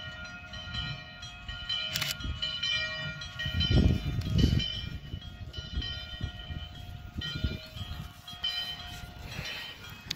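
Steam whistle of an 0-6-0 steam locomotive, a chord of several steady tones sounding in repeated long blasts. Low gusts of wind on the microphone are loudest about four seconds in.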